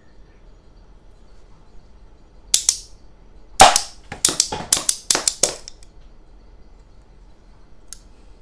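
Stainless-steel multi-shot rubber band pistol firing: a sharp click, then a loud snap about a second later, then about six quicker snaps in a row as the bands are let go one after another. A faint click near the end.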